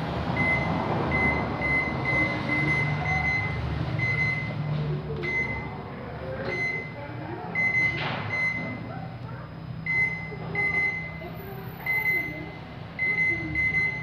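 Microwave oven membrane keypad being pressed over and over, each press answered by a short, high electronic beep: a quick run of beeps in the first few seconds, then more spaced-out beeps. The beeps show that the newly fitted keypad is registering every press.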